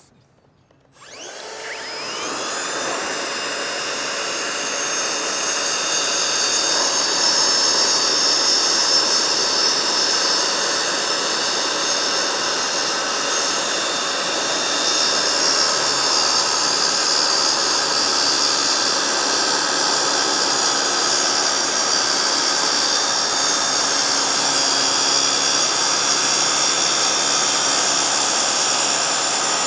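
Circular saw with a small diamond-rimmed blade cutting through a marble-look shower wall panel, together with a blower aimed at the cut. They start about a second in, build up over a couple of seconds, then run steadily with a high whine.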